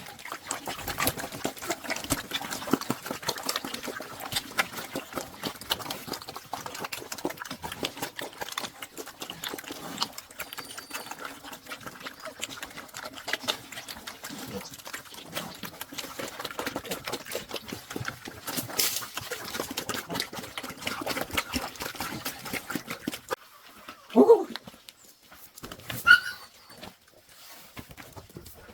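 Dense crackling and rustling with dog sounds, ending in two short yelps near the end, the second higher-pitched.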